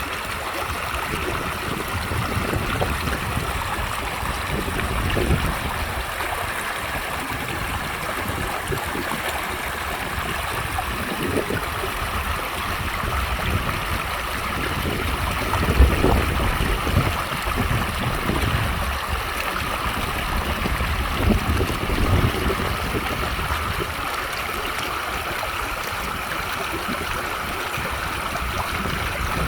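Water in a stream running with a steady rushing, trickling sound. A few low thumps come through now and then, the strongest about halfway through.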